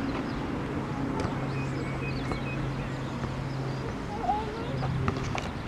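Open-air ambience at a football pitch: a steady low hum with faint high chirps. A single wavering call, like a distant shout, comes about four seconds in.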